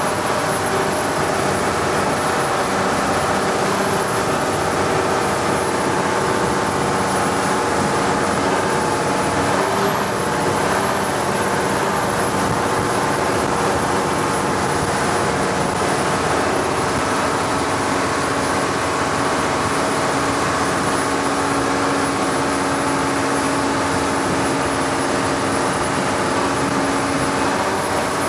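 Longtail boat engine running steadily at cruising speed, a loud even drone over a rush of wind and water.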